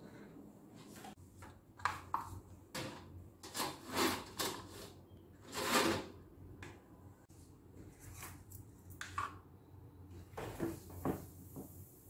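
Household items being picked up and set down on a wooden desk and a metal-mesh shelf: an irregular series of short knocks, rustles and scrapes, the loudest about six seconds in.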